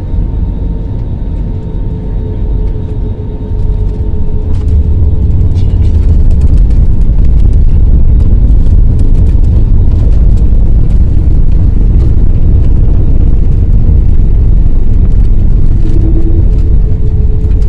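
Loud, steady low rumble inside an airliner cabin during landing. It swells about four seconds in, a steady whine fades out at the same time, and scattered rattles follow.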